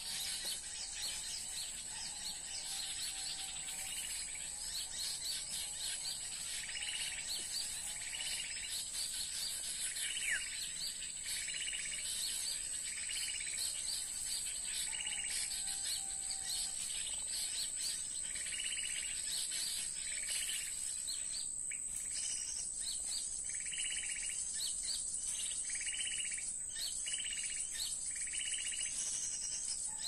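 Recorded small-bird lure calls (suara pikat) played through a portable speaker: rapid high chirping in repeated phrases about every second and a half, over a steady high-pitched hum.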